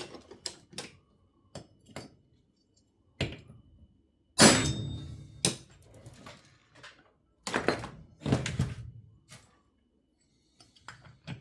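Metal tools knocking and clunking while the heated, Loctited flywheel nut of a 2511T clone chainsaw is being worked loose. There are scattered sharp knocks, a loud burst that tails off about four seconds in, and two more bursts around eight seconds.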